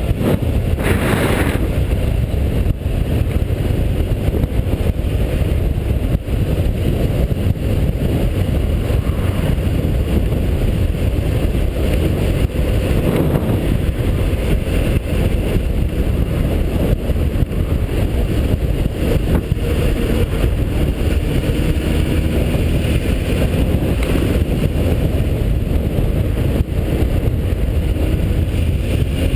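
Motorcycle on the move: steady, loud wind rush on the microphone over the running engine, with the engine note faintly rising near the end.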